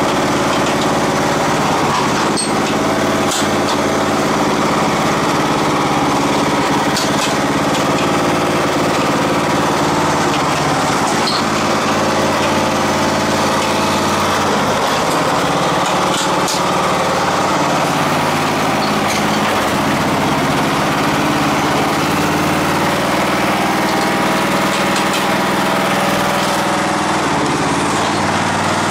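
Craftsman riding lawn tractor's engine running steadily, its pitch wavering slightly about halfway through.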